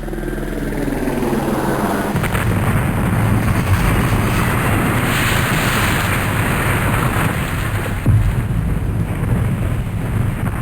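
Mil Mi-4 helicopter at close range: its radial piston engine and rotor making a loud, dense rumble that builds over the first few seconds as it lifts off, with a brief sharper jolt about eight seconds in.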